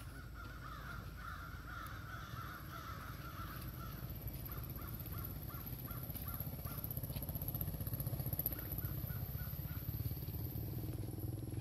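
Animal calls: a rough, drawn-out call for the first few seconds, then two runs of short, evenly spaced caw-like calls.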